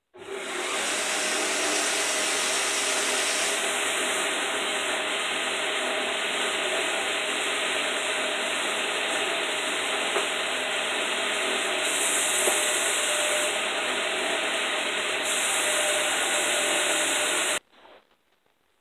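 Belt grinder running steadily while a wooden knife-handle scale is held against the sanding belt, grinding its end down and scorching it darker. The sound starts suddenly and cuts off about a second before the end.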